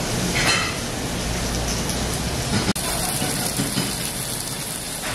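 Pork sizzling on a tabletop grill: a steady crackling hiss of fat and juices frying, broken by a momentary dropout near the middle.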